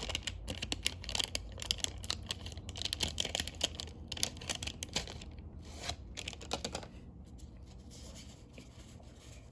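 A plastic trading-card blister pack being cut and torn open by hand, with rapid clicking, scratching and crinkling of the plastic. The handling quiets down about seven seconds in.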